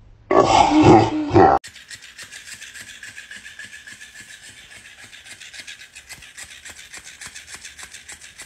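A cat gives a loud yowl lasting about a second. After an abrupt cut, a rapid, even clicking of about four strokes a second sets in over a high hiss, from an electric flopping fish toy wriggling while a cat grapples it.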